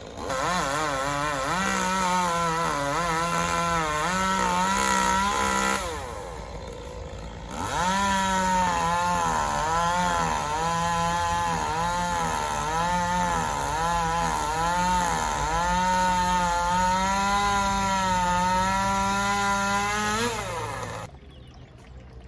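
Chainsaw revving through two long cuts, its pitch dipping and rising as the chain takes the load. It drops back briefly about six seconds in and falls away about a second before the end.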